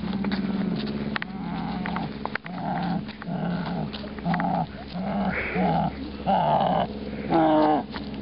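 A dog growling in repeated rumbling bursts, about two a second, with a higher falling whine near the end.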